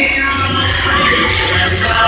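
Latin dance music played loud over a sonidero sound system, with a steady bass line under it.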